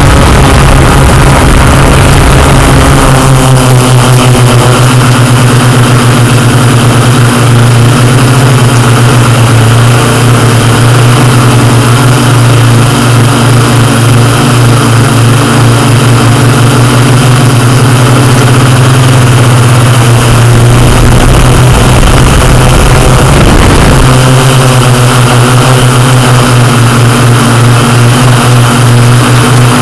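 Yuneec Typhoon Q500 quadcopter's electric motors and propellers whining loudly in flight, heard from the drone's own camera. The hum is steady, shifting in pitch about three seconds in and again near the end as the drone manoeuvres, with a low rumble just before the second shift.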